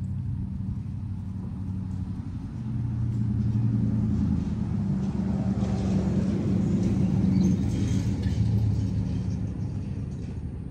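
A motor vehicle's engine running as it drives along the street, a steady low hum that grows louder a couple of seconds in and eases off near the end.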